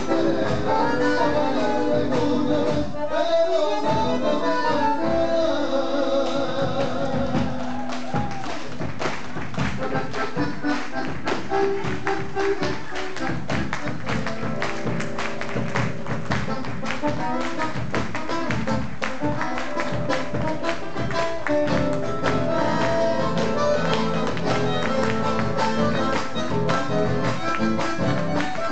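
Live chacarera on bandoneón and acoustic guitars, with a steady sharp percussive beat that becomes dense from about eight seconds in.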